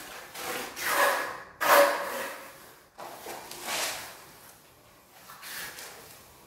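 Hand trowel scraping and smoothing a wet cement patch on a concrete floor, in several short strokes spaced a second or two apart.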